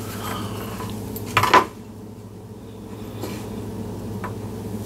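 Light metallic clinks and taps of small lure hardware, wire and spinner blades, being handled on a wooden table, with one louder clink about a second and a half in.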